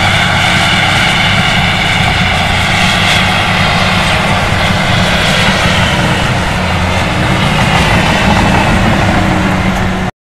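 John Deere crawler dozer's diesel engine running steadily under load as the machine pushes earth with its blade, cutting off suddenly near the end.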